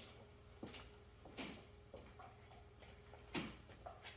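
Faint, irregular clicks, taps and short scrapes from handling a plastic cup and stir stick while mixing thickened epoxy, over a faint steady hum.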